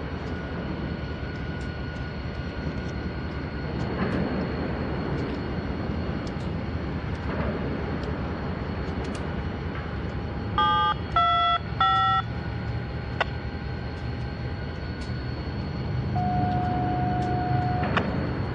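Steady low rumble with three short electronic beeps of changing pitch about eleven seconds in, and one longer steady beep near the end.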